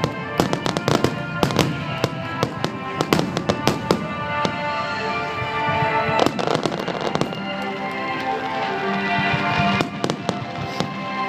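Large aerial fireworks exploding in rapid volleys of bangs, thickest in the first four seconds and again about six seconds in and near the end. Music with long held notes plays under them and comes to the fore in the quieter stretch between volleys.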